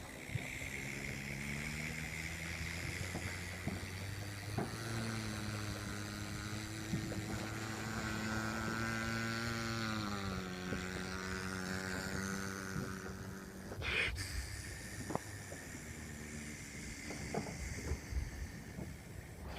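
A motor vehicle engine running steadily; its pitch drops about ten seconds in and it fades away soon after. A few sharp pops, the loudest about fourteen seconds in.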